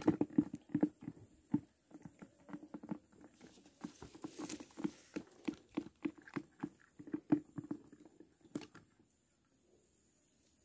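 A run of quick, irregular light knocks and taps, a few a second, stopping about nine seconds in.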